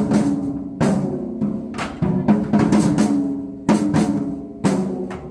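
Marching tenor drums struck with sticks in a short pattern of sharp hits, each drum ringing on with its own pitch.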